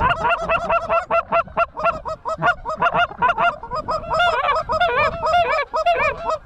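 A flock of geese honking: many short, overlapping calls, several a second, that never let up.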